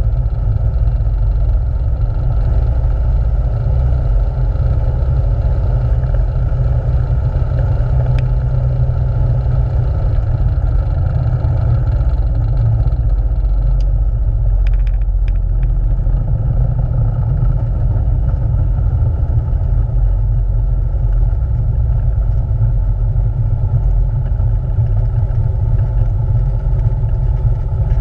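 Light aircraft engine running steadily at low power, with wheel rumble as the plane rolls along the runway and taxis, heard from inside the cockpit. A few brief clicks and rattles come around the middle.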